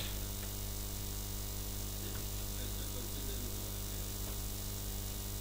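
Steady low electrical hum with a constant hiss underneath: background mains hum and noise on the recording.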